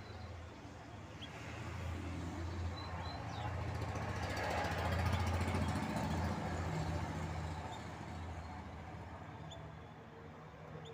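A motor vehicle passing: a low engine and road rumble swells to its loudest about halfway through, then fades. A few faint bird chirps sound over it.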